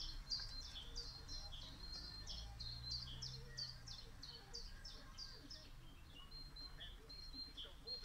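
A songbird singing a fast series of repeated down-slurred whistled notes, about three a second, thinning out and growing fainter in the second half. Short, thin, steady high notes come and go behind it.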